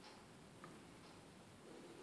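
Near silence: room tone with a couple of faint, short computer-mouse clicks.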